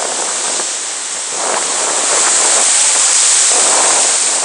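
Breaking surf washing in over the shallows, a loud rush of water and foam that swells about a second and a half in and stays strong.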